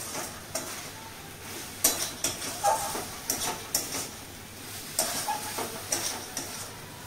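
Flat metal spatula scraping and knocking against a metal kadai (wok) as a thick banana-flower and shrimp mixture is stirred hard, in irregular strokes. The mixture is being kept moving so it does not stick to the bottom of the pan.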